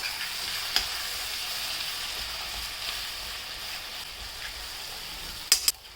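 Ground raw turmeric and dry ginger sizzling as they fry in hot ghee and mustard oil in a pan, with a steady hiss. A light knock comes about a second in, and two sharp knocks near the end are the loudest sounds.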